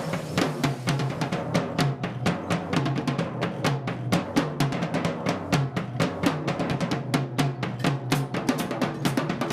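Live drumming: a fast, dense run of drum strikes, several a second, with snare-like and bass-drum hits.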